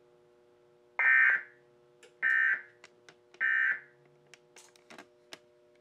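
Emergency Alert System end-of-message data bursts: three short buzzy digital tone bursts about a second apart, each around half a second long, marking the end of the relayed alert. A few faint clicks follow.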